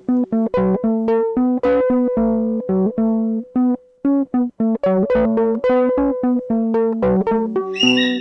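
Instrumental background music of plucked notes with a steady pulse, pausing briefly about four seconds in.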